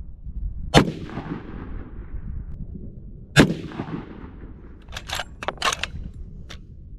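Two rifle shots from a Ruger Precision Rifle in .300 Winchester Magnum, about two and a half seconds apart, each a sharp crack followed by a long rumbling echo. A quick run of short sharp clicks follows near the end.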